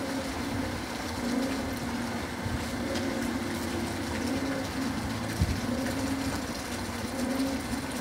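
Steady low machine hum, wavering slightly in level, over an even background hiss, with one short low thump about five and a half seconds in.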